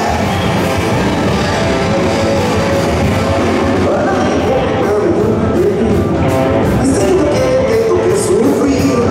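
Live rock band playing loudly: electric guitar and drums with a regular cymbal beat, and a man singing into a microphone.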